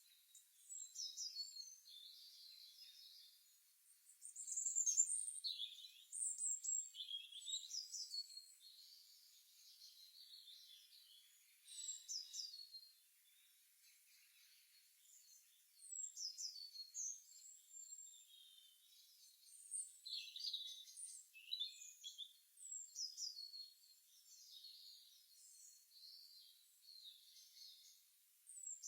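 Birds chirping and singing in short, high-pitched phrases of quick falling notes every few seconds, with brief quieter gaps between phrases.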